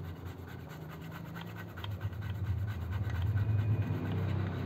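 Toothbrush bristles scrubbing a printed circuit board wet with thinner: a quick, uneven scratchy rubbing. Under it a low hum grows louder about halfway through.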